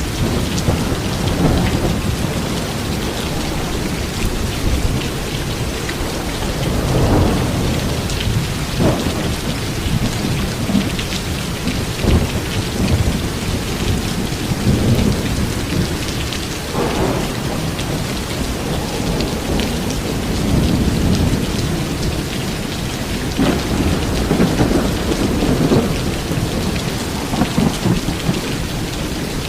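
Heavy rain pouring steadily, with low rumbles swelling up every few seconds.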